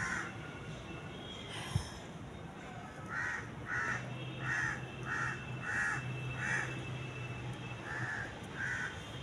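A crow cawing repeatedly, a run of short, rough caws about two a second that starts about three seconds in and pauses briefly near the end.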